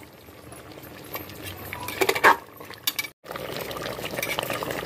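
Metal spoon clinking and scraping against a cooking pot as a mutton curry is stirred, over the steady bubbling of the curry boiling on a high flame. The sound drops out briefly about three seconds in, after which the boiling continues a little louder.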